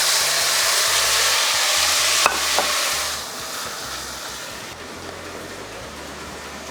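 Chopped tomatoes, peppers and onions in olive oil sizzling as they hit the heat and fry, loud at first and settling to a quieter sizzle after about three seconds. A single short clink about two seconds in.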